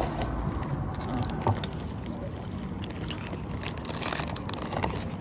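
A plastic bag of baby carrots crinkling and rustling in the hands as the carrots are shaken out, with scattered crackles, over a steady low rumble.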